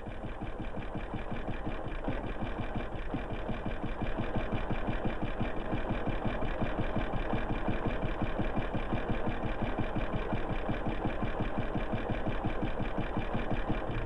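Motor-driven grain mill running with a fast, steady mechanical clatter that builds over the first few seconds: a village flour mill newly modernized with a motor.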